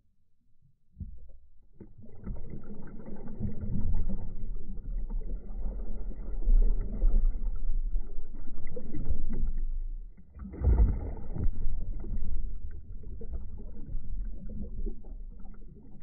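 Muffled rushing and churning of water around a phone held underwater by a swimmer doing breaststroke, with surges of bubbling that swell and fade with the strokes. It starts about a second in, dips briefly about ten seconds in, then comes back in its loudest surge.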